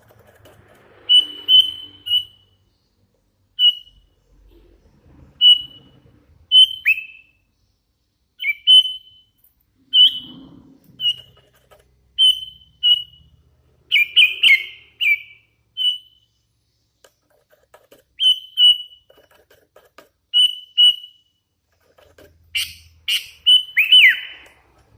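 Young hand-reared sooty-headed bulbul (kutilang) calling in short, clear whistled notes, singly or in quick pairs every second or so, a few of them sliding downward. The strongest call, near the end, is a cluster of notes ending in a falling whistle.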